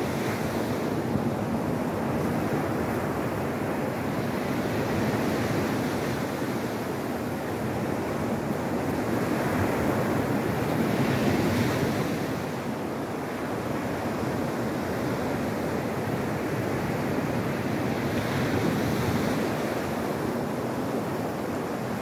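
Sea waves breaking and washing up a pebble beach: a continuous rush of surf that swells as larger waves break, once around the middle and again near the end.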